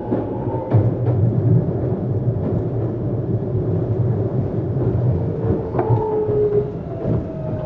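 Running sound inside a Tokyu 7700 series electric train car: a steady low rumble of wheels on rail with a few rail-joint clacks, and pitched whines from the traction equipment that slide slightly downward over the last few seconds.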